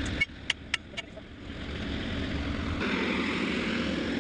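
Excavator engine running. The sound drops briefly about a quarter second in, with a few sharp clicks or knocks, then builds back up to a steady run.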